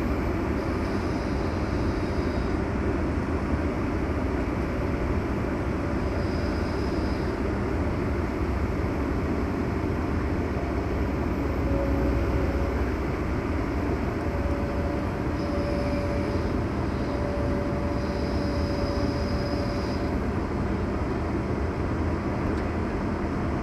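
Heavy diesel engine of a hydraulic excavator running steadily during a truck recovery, with a faint high whine that comes and goes several times.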